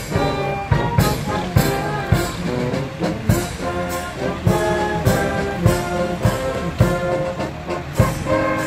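A brass band playing a tune with trumpets and trombones over a steady beat.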